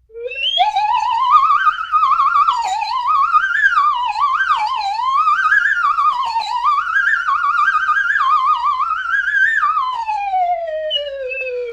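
Slide whistle played in a fast, wobbly series of up-and-down slides. It starts with a rising swoop, wavers with a quick vibrato, and about ten seconds in makes one long downward slide that settles on a low held note.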